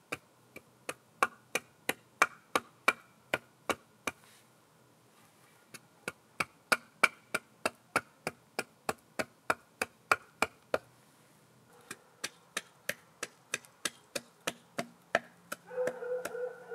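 Repeated sharp knocks on wood, about three a second in a steady rhythm, pausing twice for a second or so. A short burst of rougher noise comes near the end.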